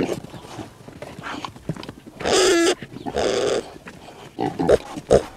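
Domestic pigs grunting, with one loud squeal about two seconds in and a run of short grunts near the end.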